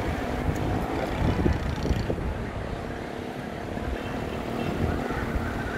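Street traffic noise: vehicle engines running steadily, with no clear single event.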